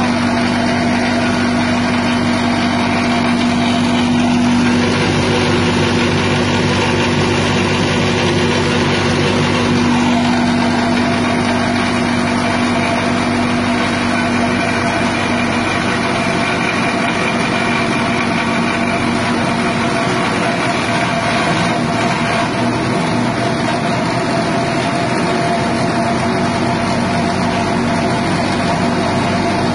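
Grass chopper driven by a 6.5 hp petrol engine, running steadily at constant speed; its tone shifts briefly between about 4 and 10 seconds in.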